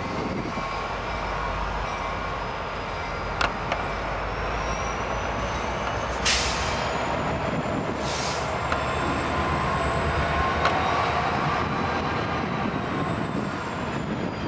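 CSX diesel-electric locomotive running as it rolls slowly past, a steady low rumble. A sharp click comes about three and a half seconds in, and two short hisses follow around six and eight seconds in.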